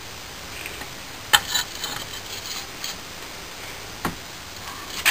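Steel tongs clicking and clinking against a freshly poured metal casting as it is gripped and lifted out of a flask of foundry sand: a few sharp, spaced-out clicks over a faint steady hiss.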